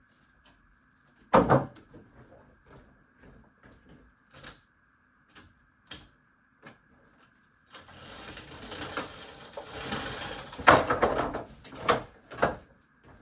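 Handling noise of a metal carabiner multitool: scattered small clicks and knocks, one loud knock about a second in, then several seconds of rustling and scraping with a few sharper knocks near the end.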